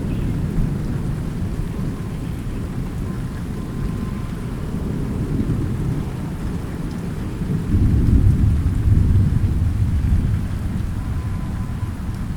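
Thunderstorm: rain falling steadily under low, rolling thunder, which swells to a louder rumble about two-thirds of the way through and then fades back.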